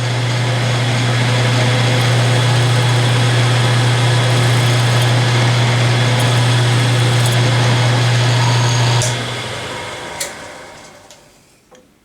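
Machine-tool spindle motor running steadily with a strong low hum and a milling cutter in the chuck, as it flattens an angled broken screw end. It is switched off about nine seconds in and winds down over about two seconds.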